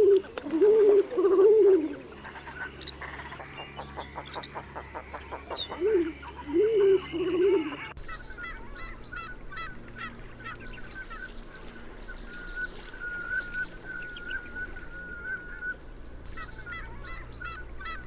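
Male king eider giving a low call of three rising-and-falling notes, twice. Then, in a different recording, common scoter calls: short high piping notes and one whistle held for about three seconds, with faint ticking calls behind.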